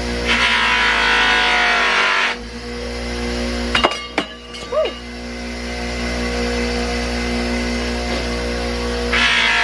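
A bench motor spins a wire or buffing wheel with a steady hum, and a brass-plated steel door plate grinds loudly against it for the first two seconds and again near the end. In between the hum runs alone, with a few clicks about four seconds in. The wheel may be wearing through the thin brass plating.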